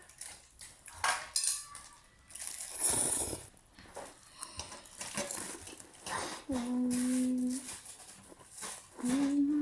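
Clicks and knocks of eating utensils and dishes being handled, with a loud rustle about three seconds in. A voice hums a held note twice, about seven seconds in and near the end.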